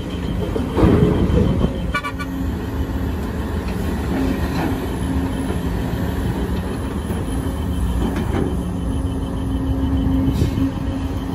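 Diesel engines of a Sumitomo SH210 hydraulic excavator and dump trucks running steadily, with a louder burst of noise about a second in and a short horn toot about two seconds in.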